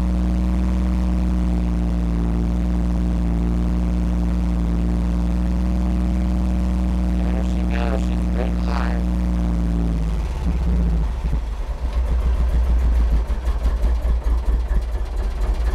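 An old vehicle's engine, heard from inside the cab, runs at a steady speed, then about ten seconds in drops to a rough, uneven idle with lumpy low pulses, barely running.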